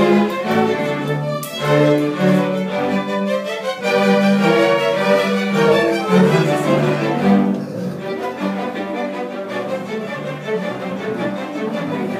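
String orchestra playing together in rehearsal: violins, cellos and double bass bowing a piece under a conductor, a little softer from about eight seconds in.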